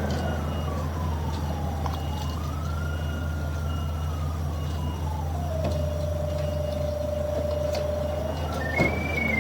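Sewer-camera locator's signal tone, one note sliding slowly down and up in pitch, holding low for a couple of seconds, then jumping high near the end as the locator is moved over the camera's sonde. A steady low hum runs underneath.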